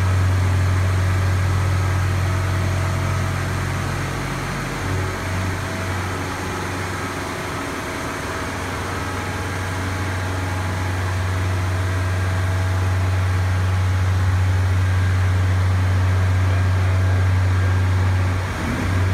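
Engine of heavy machinery running with a steady low drone. It eases off a little in the middle and picks up again later.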